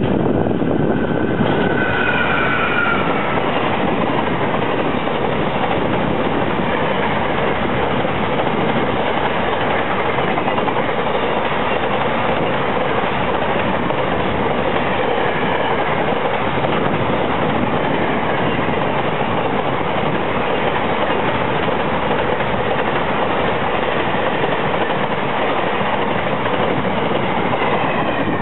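Long container freight train behind an electric locomotive running past at speed: a steady rush and rattle of wagon wheels over the rails, with a short falling whine about two seconds in.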